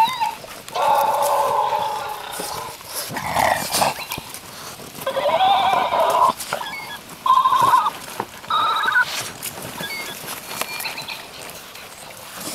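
Dogs whining: a series of high, wavering cries, several in a row, as they nose into a cardboard shipping box, with scattered rustles and knocks of the box.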